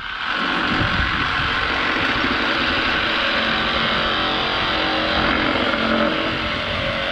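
Engine running steadily at a constant speed, cutting in abruptly, with a hum of several steady tones.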